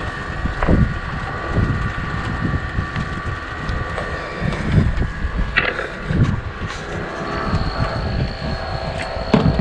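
Boat engine running steadily, with wind buffeting the microphone and a few short knocks from handling gear on the boat.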